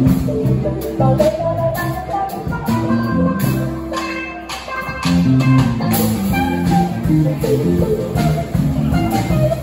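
Live band playing an instrumental passage on electric guitar, acoustic guitar, bass guitar and drum kit. The music eases off briefly around the middle, then the full band comes back in.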